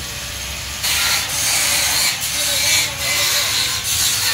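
Handheld angle grinder working over the steel slats of a gate frame, a harsh grinding hiss that comes in repeated passes with short breaks, growing louder about a second in.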